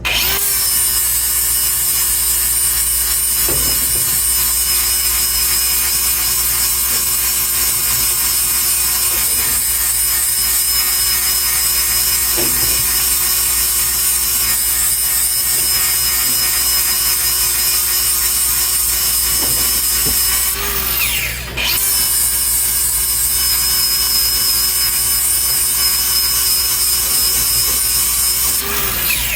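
Handheld power grinder sharpening a cutting tooth of a Bandit Beast 4680 grinder, running steadily with a motor whine under the grinding noise. It eases off briefly about two-thirds of the way through, then grinds on until it stops.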